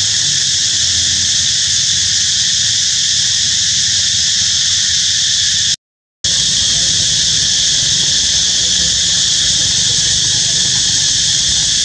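Steady, loud, high-pitched insect chorus droning without a break. It cuts out for a split second about six seconds in and then resumes unchanged.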